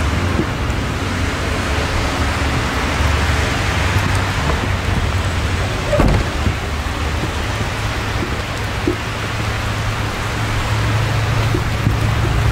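Steady rain with a low rumble underneath, and a single sharp knock about six seconds in.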